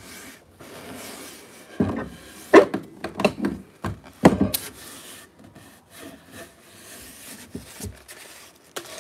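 Gloved hand rubbing along a wooden axe handle, oiling it, with several sharp knocks as the axe is handled on the workbench.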